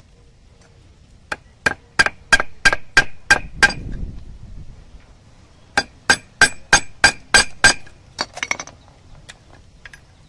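Hammer striking a nail used as a punch to hole a small heart-shaped metal spear-gun barb resting on a wooden block: two runs of sharp, ringing metal-on-metal blows about three a second, roughly eight from a second and a half in and about seven more from six seconds in, then a few lighter taps.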